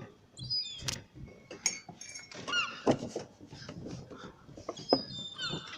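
Seagulls calling repeatedly in short, high notes that fall in pitch, with a few sharp clicks among them.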